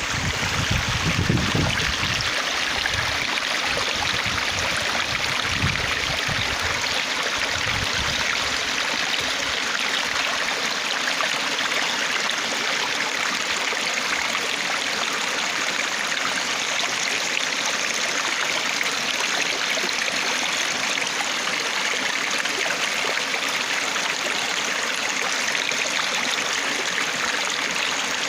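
Stream water flowing and splashing steadily, with a few low rumbles or bumps in the first eight seconds.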